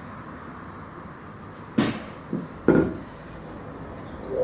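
Three sharp wooden knocks, two strong ones about a second apart with a lighter one between, from bench parts being knocked together while a mortice-and-tenon joint is dry-fitted.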